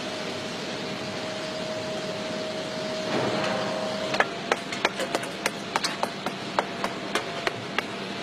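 Steady hum of a foundry, then from about four seconds in a run of a dozen or so sharp, light clicks and taps as sand cores for an engine block casting are handled and fitted together.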